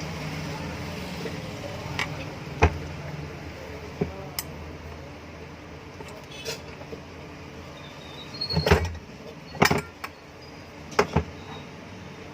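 Hand tools and loose metal parts clinking and knocking against a ceiling fan's motor casing while its screws are taken out: about ten sharp clicks a second or more apart, the loudest cluster about two-thirds of the way through, over a low steady hum.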